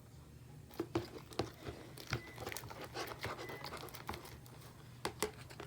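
Glue-based slime thickening in a bowl as it is stirred, giving a string of irregular sticky clicks and smacks. The mixture is turning from liquid glue into slime as the Tide activator takes hold.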